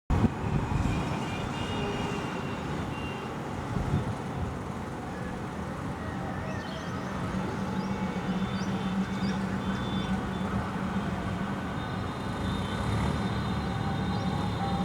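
Steady road-traffic and engine rumble, with a low engine drone from about six seconds in, over faint short bird chirps and whistles.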